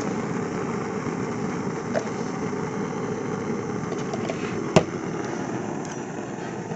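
Steady low rushing noise of the flame burner under the soup pot. About five seconds in comes a single sharp knock, the plastic spice jar being set down on the table.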